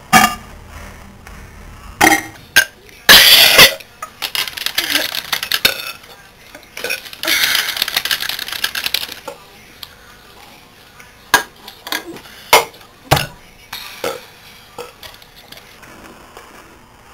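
A person burping in short, breathy, noisy bursts, the loudest about three seconds in and a longer one around the middle, with several sharp clicks or clinks in between.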